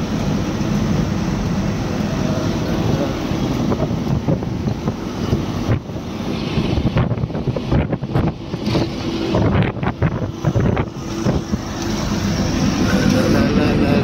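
Eicher Pro 2114XP truck's four-cylinder diesel running at highway speed, heard from inside the cab as a steady low drone with road and tyre noise. Wind buffets the microphone, with uneven dips and surges in the middle.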